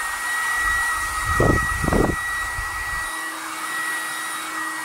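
Deerma DEM-CF30W hair dryer running on its second, high-power mode: a steady high motor whine over rushing air. About one and a half and two seconds in, two brief low rumbles.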